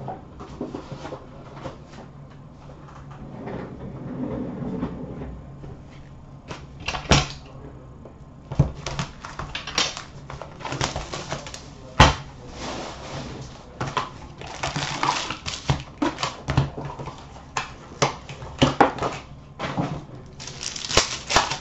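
A box of hockey cards being opened by hand: cardboard and pack wrappers rustling and tearing, with irregular sharp clicks and taps as packs and cards are set down on a glass counter, growing busier about a third of the way in.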